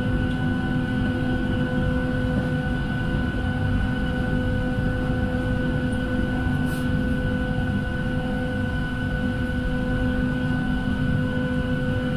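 Steady cabin hum inside a Boeing 737-700 parked at the gate before engine start: a low rumble under a constant whine at several fixed pitches, from the air-conditioning and auxiliary power unit.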